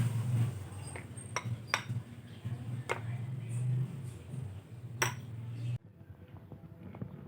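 Utensils clinking and knocking against cookware in a few sharp, separate strikes, over a steady low hum that cuts off suddenly near the end.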